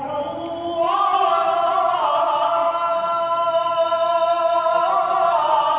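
A muezzin's solo male voice chanting the Friday inner call to prayer (iç ezan), holding long ornamented notes that step up in pitch about a second in, drop about two seconds in and rise again near the end.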